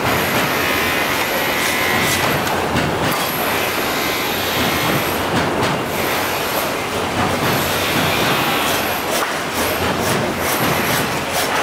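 Hand meat saw with a steel frame cutting steadily through the rib bones of a beef forequarter: continuous scraping of the blade on bone and meat with no breaks.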